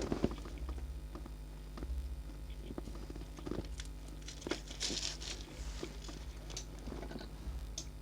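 Scattered light clicks, taps and crinkling from small parts and tools being handled during a phone repair, over a steady low electrical hum.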